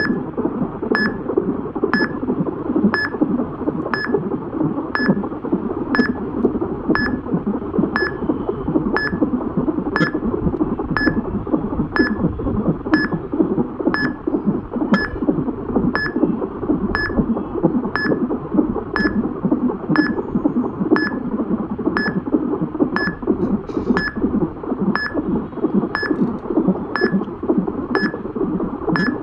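Fetal heartbeat heard through an ultrasound Doppler monitor's speaker: a rapid, pulsing whoosh. A short high beep sounds about once a second throughout.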